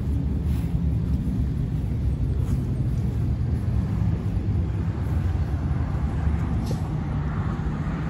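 Steady rumble of road traffic on a busy multi-lane road, with the hiss of tyres growing from about five seconds in as vehicles pass.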